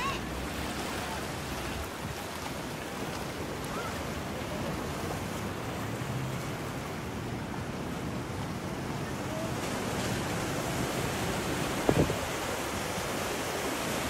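Ocean surf breaking and washing over a rock shelf, a steady rush of water with some wind on the microphone. A short thump comes near the end.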